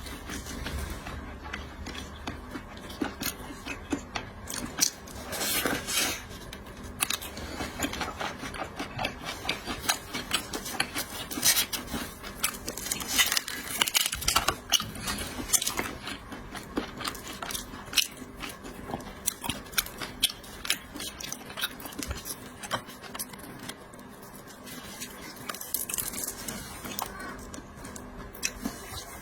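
Close-miked eating of seafood: biting, chewing and crunching, with many irregular small clicks and scrapes.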